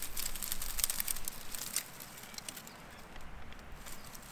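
Small dry kindling twigs crackling and snapping: a quick run of light clicks for about the first two seconds, one sharper snap, then only faint ticks.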